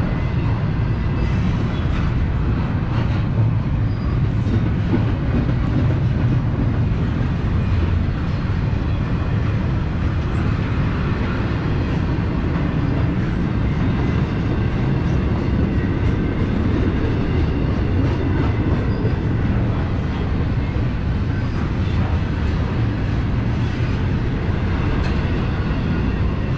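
Double-stack intermodal well cars of a freight train rolling steadily past close by: the continuous low rumble of steel wheels on the rails, with a few faint clicks.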